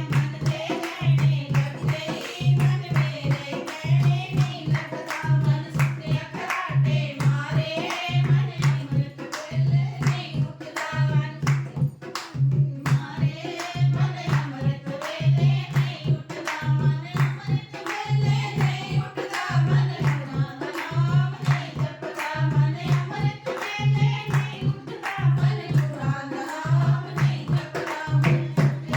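Devotional Punjabi satsang bhajan sung by a group, over a steady deep drum beat with hand clapping.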